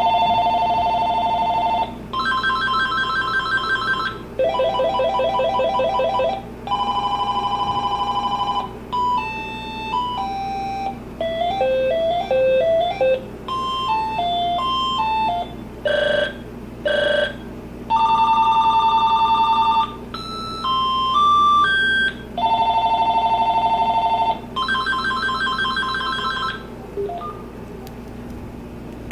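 Vtech DS6121 DECT 6.0 cordless phone playing through its built-in ringtones one after another. Each lasts about one to two seconds, with short gaps between them. Some are fast electronic warbling trills and others are short beeping melodies that step up and down in pitch.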